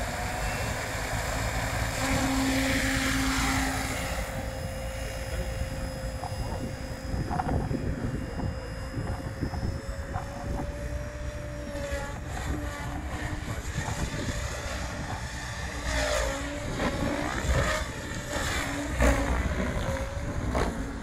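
Radio-controlled model helicopter in flight: a steady whine from its rotors and motor as it climbs away, then a pitch that sweeps up and down repeatedly in the second half as it manoeuvres. A low rumble, like wind on the microphone, runs underneath.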